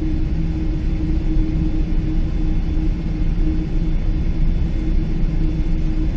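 Steady cabin rumble inside a Boeing 777-300 airliner, heard from the rearmost seat: jet engine and airflow noise with a steady low hum.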